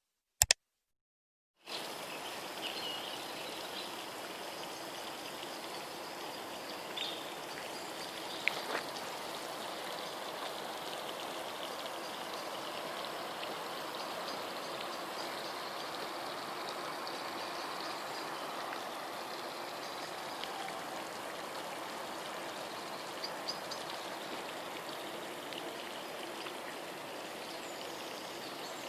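A sharp click right at the start, then, after a short gap, water running steadily, such as a garden stream or fountain.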